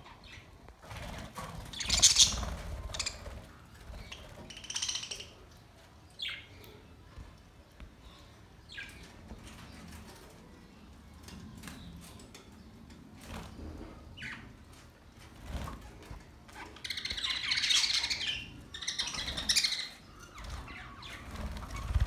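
Flock of budgerigars chirping and chattering, with wings flapping as birds take off and fly between perches. The chatter comes in irregular bursts, loudest about two seconds in and again from about seventeen to twenty seconds.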